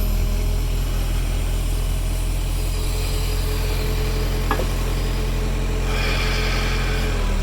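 Backhoe engine running steadily while it digs, with a short burst of higher hissing about six seconds in.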